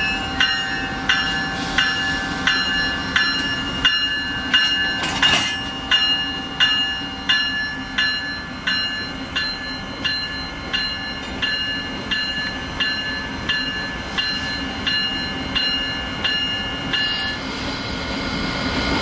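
Locomotive bell ringing at an even pace, almost two strikes a second, over a steady low hum; the bell stops near the end. A brief hiss sounds about five seconds in.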